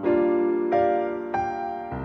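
Background music: a slow piano melody, with a new note or chord struck about every two-thirds of a second and left to ring.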